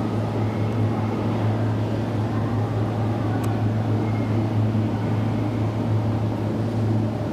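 Osaka Metro Chuo Line Series 20 subway train running through the tunnel station: a steady rumble with a constant low hum, and one sharp click about three and a half seconds in.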